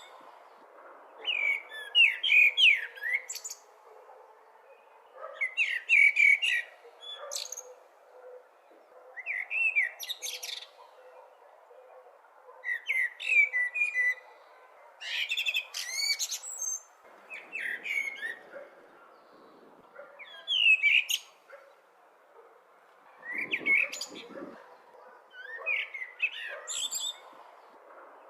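Blackbird singing: short warbled phrases of fluting notes, each ending in a high twitter, repeated every few seconds, about nine times, over a faint steady background hiss.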